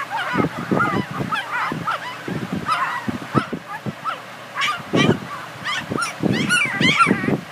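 Young border collie puppies squealing and whimpering: many short, high-pitched cries that overlap, several a second.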